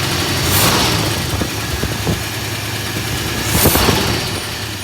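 1971 Ford F250 truck engine idling, slightly knocky. Two short louder rushes break into the steady running, about a second in and again about three seconds later.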